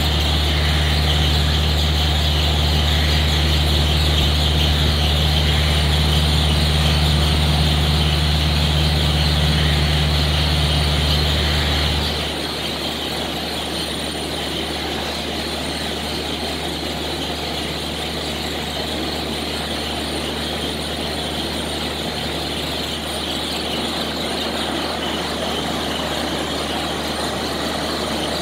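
Steady mechanical hum and whir of barn machinery. A deep, loud hum drops away suddenly about twelve seconds in, leaving a lighter steady hum.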